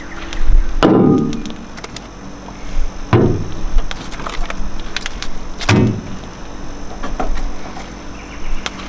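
Camping gear and food containers being unpacked from a car: three heavy thumps about two and a half seconds apart, each with a short ring, and lighter knocks and clicks between them.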